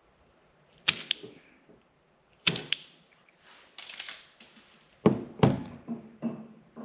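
A series of sharp, irregularly spaced clicks and snaps from hand tools and small wiring parts, as wire ends are being terminated for an automotive wiring harness.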